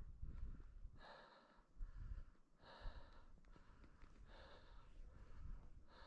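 A hiker's faint, rhythmic breathing close to the microphone, with four soft exhales spaced about a second and a half apart over a low wind rumble.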